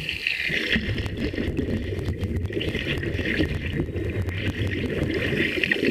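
Muffled underwater rumbling and bubbling of churned lake water, heard through a submerged camera, with a run of sharp clicks about one to three seconds in.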